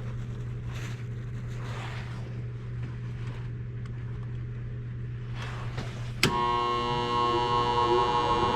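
A steady low hum, then a sharp click about six seconds in as the fan terminal (G) on the gas furnace's control is jumped. The furnace's blower motor then starts up with a whine of several steady tones that grows louder.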